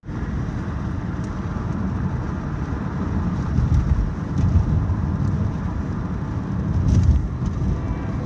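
Car being driven: a steady low rumble of road and engine noise that starts abruptly.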